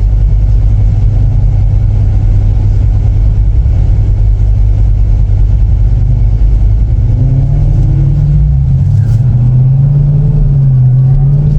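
Car engine running and accelerating under a heavy low rumble, a steadier engine note that wavers and climbs coming through about seven seconds in.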